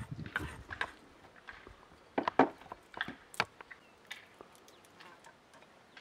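Knife work at a wooden cutting board: a run of light taps and scrapes as chopped red cabbage is pushed off the board, then a few sharp clicks of a small knife peeling garlic cloves, loudest between about two and three and a half seconds in.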